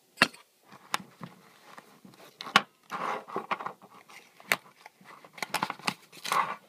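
Handling noise: sharp knocks and clicks with scraping and rustling between them, as the watch's packaging and the recording phone are handled and bumped.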